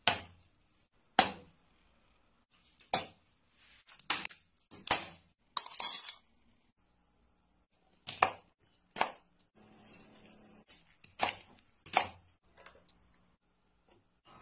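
Single sharp knocks of food prep on boards: shells set down on a slate serving board near the start, then a chef's knife chopping green chillies on a plastic cutting board in separate strokes about a second apart. A short high squeak comes near the end.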